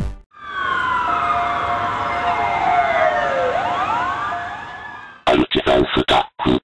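Synthesized transition effect in a commercial soundtrack: several electronic tones glide slowly downward together for about four seconds, with a few rising sweeps near the end, then fade away. Then comes a quick run of chopped, stuttering bursts that stops abruptly.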